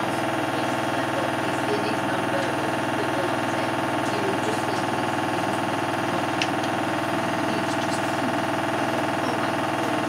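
Hoover H-Wash 300 Plus front-loading washing machine running mid-cycle: a steady, even motor hum with several held tones.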